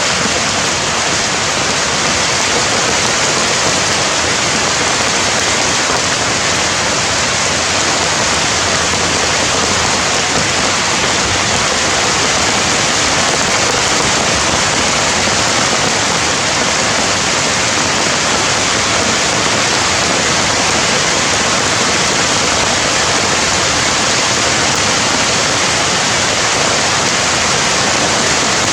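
Steady, loud rushing of water, unbroken and even throughout.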